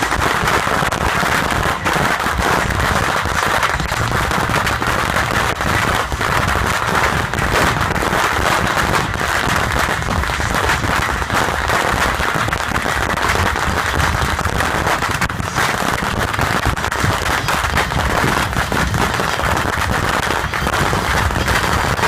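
Dense, continuous barrage of bottle rockets firing from a beehive rocket rack: a steady, unbroken crackle of countless rapid bangs over a rushing hiss.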